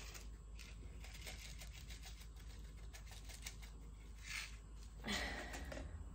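Hands at work sowing onion seeds: a run of small, quick clicks and ticks, then two short rustles near the end, the second louder.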